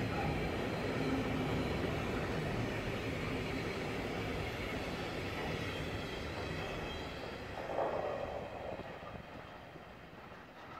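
Freight train of tank wagons rolling past close by: a steady rumble and clatter of wheels on the rails. A brief louder moment comes about eight seconds in as the last wagon goes by, and then the train fades away into the distance.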